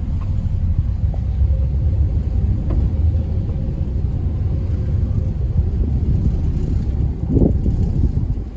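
Steady low rumble of the Supercat ferry's engines, heard from the open deck as the boat moves slowly past a wharf. A brief louder surge comes about seven seconds in.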